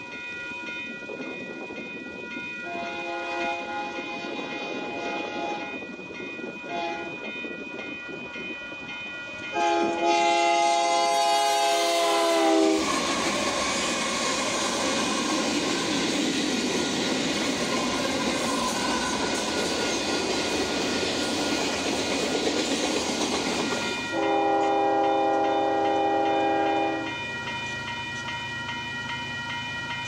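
Union Pacific diesel locomotive's multi-chime air horn sounding a grade-crossing signal: a long blast, a short one, then a final long blast that drops in pitch as the locomotives reach the crossing. The locomotives and rail cars then rush past with wheel clatter for about ten seconds, and another long horn blast sounds near the end.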